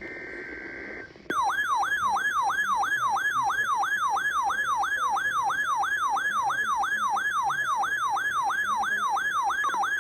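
A short steady two-tone data burst, then an electronic alert siren that starts about a second in. It sweeps up in pitch and drops back, about three times a second, steadily and loudly: an alert device's alarm signalling a new weather warning.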